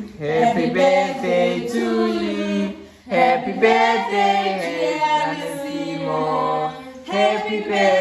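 People singing a birthday song together without instruments, in long held phrases, with a short break about three seconds in.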